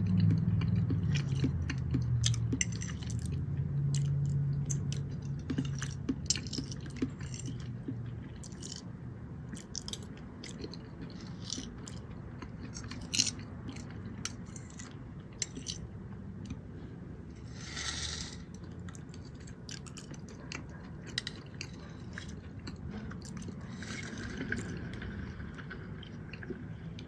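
Close-miked chewing with many small wet mouth clicks and smacks, louder in the first few seconds, and a brief noisy burst about 18 seconds in.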